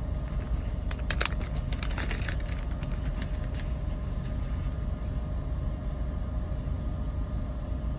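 A steady low rumble with a faint steady hum over it, and a handful of light clicks and knocks in the first two to three seconds.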